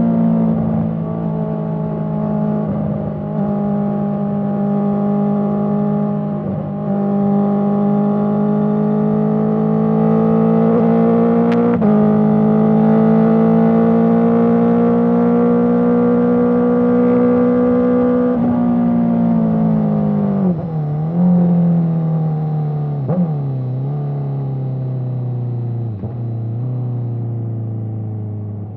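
Honda CBR650R's inline-four through an Akrapovic exhaust, ridden at a near-steady engine speed with small changes in the note, then slowing from about two-thirds in: the pitch falls, with a few brief dips and recoveries as it changes down.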